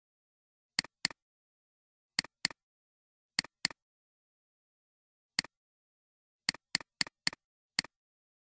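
Computer mouse clicking: sharp single clicks, mostly in quick pairs, with dead silence between them.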